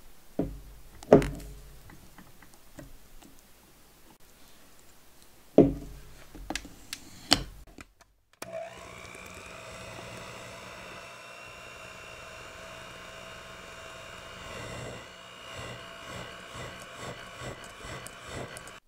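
A few sharp knocks in the first several seconds, then about eight seconds in an electric hand mixer switches on and runs steadily, its wire beaters whirring through cream cheese batter as Nutella is beaten in.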